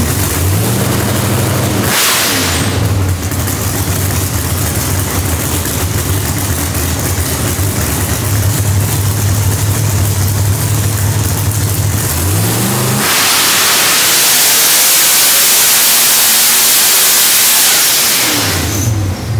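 ProCharger-supercharged Noonan 565ci Hemi V8 in a drag Camaro running on a hub dyno: held at a steady engine speed with a couple of short rises, then revved up about twelve seconds in into a louder full-throttle pull lasting about five seconds, which falls away near the end.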